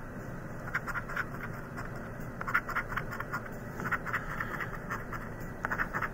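A coin scratching the coating off a scratch-off lottery ticket: quick scraping strokes in four short bursts, roughly one every second and a half.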